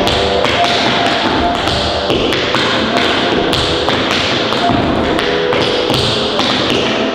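Metal-plated tap shoes striking a wooden floor in a tap-dance routine: quick, sharp taps several a second, with heavier heel drops mixed in.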